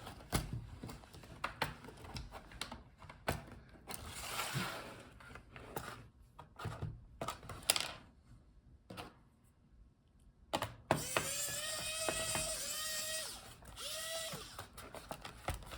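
Plastic bottom cover of a laptop being pried off along its seam: scattered clicks and snaps as the retaining clips let go, with scraping between them. Toward the end comes a louder, drawn-out squeaky scrape of plastic on plastic lasting a few seconds.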